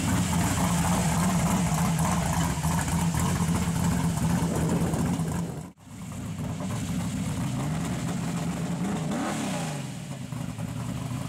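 The lifted Toyota pickup's V8, said to be an all-aluminum 427 small-block, running at a steady pitch. The sound breaks off sharply about halfway, comes back, and is revved once near the end, the pitch climbing and dropping quickly.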